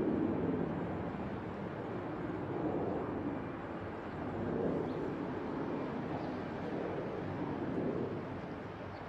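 Distant rumble of a jet airliner on final approach, mixed with wind on the microphone. It is a noisy, even sound that swells and fades a few times.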